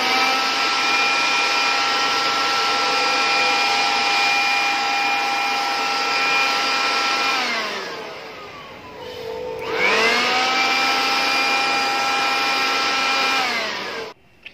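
Bosch 620-watt electric air blower running flat out, a steady high motor whine over a rush of air. About seven and a half seconds in it is switched off and its whine falls as it spins down, then it is switched on again, spins back up about ten seconds in and runs steadily before spinning down again near the end.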